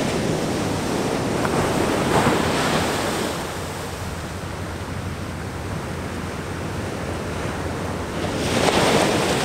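Ocean surf washing up a sandy beach, with wind on the microphone. The wash eases a few seconds in and swells again near the end as the next wave breaks.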